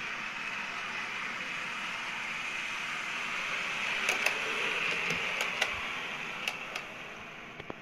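Bachmann Class 101 model diesel multiple unit running on OO-gauge track: a steady hiss of wheels and motor that grows louder as the train approaches, with a few sharp clicks from the wheels crossing rail joints between about four and seven seconds in. The sound fades near the end as the train slows.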